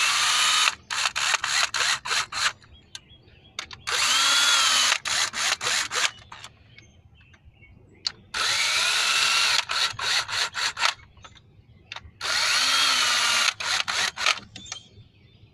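Power drill with a socket extension running cylinder-head bolts down in tightening sequence. There are four long runs of motor whine, each followed by several short blips of the trigger as each bolt seats.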